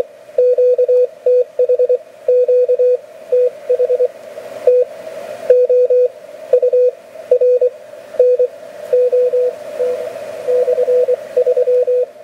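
Morse code (CW) signal heard through an Elecraft K3 transceiver tuned in the 40-metre band: one steady tone keyed on and off in dots and dashes, over a hiss of band noise that swells and fades.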